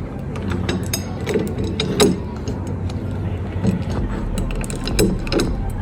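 Irregular metallic clicks and clunks of sliding patio door handle and lock parts being fitted together and worked by hand. The loudest knock comes about two seconds in, with a few more near the end.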